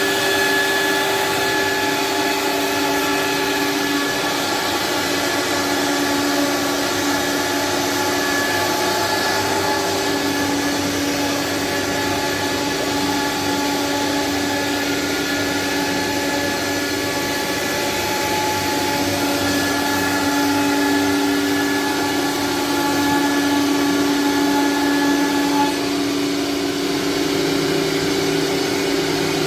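Single-head CNC wood router with a vacuum hold-down table running steadily. Its whine shifts between two pitches every few seconds.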